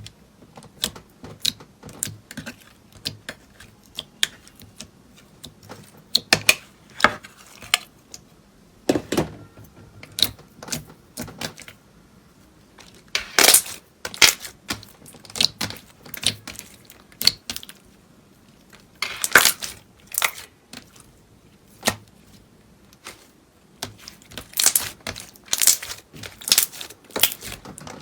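Slime being pressed and stretched by hand, making irregular sharp clicks and pops, with louder bunches of crackling in places.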